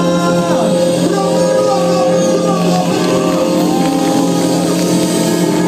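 Live band music with singing voices over it, heard loud from among the concert crowd.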